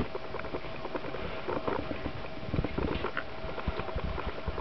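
A metal spoon stirring crumbly cottage cheese with raisins in a patterned glass bowl: irregular soft scrapes and light clicks of the spoon against the glass.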